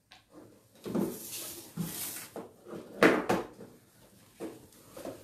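Printed dress fabric being handled and shuffled: a few short rustles and light knocks as the cloth pieces are moved and unfolded, the loudest about three seconds in.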